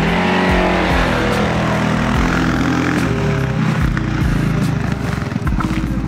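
CFMOTO CForce 600 ATV's single-cylinder engine revving under load as it drives through tall grass and a muddy ditch. The pitch rises in the first second, then holds, and the sound eases slightly in the second half.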